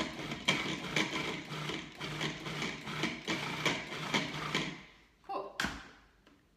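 Food processor motor running as it purees ripe avocados, with a steady hum and a regular knocking about three times a second. It stops about five seconds in, followed by two sharp plastic clicks as the lid is taken off.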